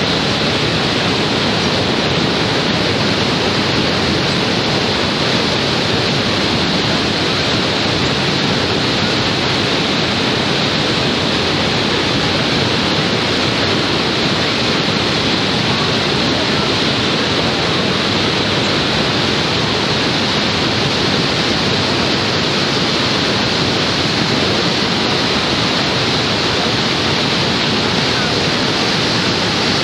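Niagara Falls pouring: a loud, steady rush of falling water that never changes.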